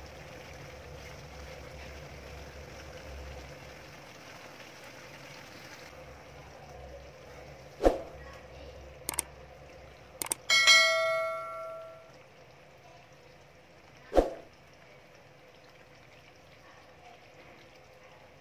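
Metal cookware knocked several times, sharp single strikes spread over about six seconds. One strike, the loudest, rings on like a bell for a second or so as the metal pot rings out. A steady low hum lies underneath at first and drops away a few seconds in.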